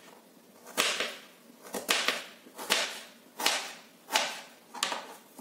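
Kitchen knife cutting through a peeled raw green mango onto a plastic cutting board. About eight short, crisp cuts come at an uneven pace, roughly one every half to three-quarters of a second.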